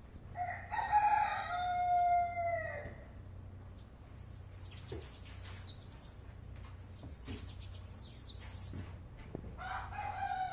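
A rooster crowing twice: one drawn-out crow near the start and another beginning near the end, each falling away at the finish. In between, a small bird sings two very high, rapid trills.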